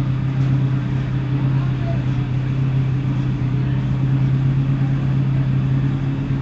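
A loud, steady mechanical drone held at one constant pitch that cuts off suddenly near the end.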